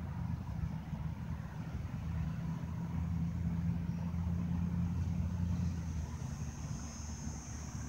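Truck engine running steadily with a low hum, which weakens about six seconds in; a faint high hiss comes in near the end.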